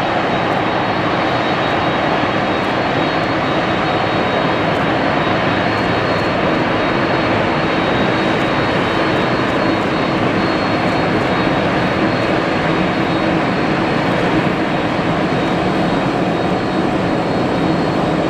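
Jet airliner engines running steadily: a dense, even rush of engine noise with a thin, steady high whine over it.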